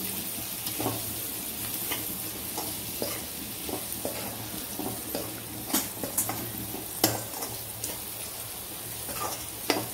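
Metal slotted spoon stirring peas, onions and spices in a metal pan, scraping and clacking against the pan now and then, over a steady sizzle of frying.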